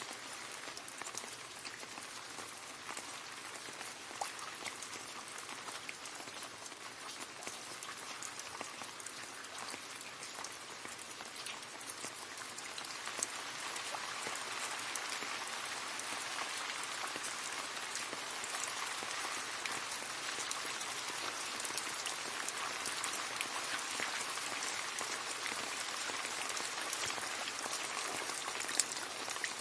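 Steady rain falling and splashing into a puddle, many fine drop splashes over a constant patter, growing a little heavier about halfway through.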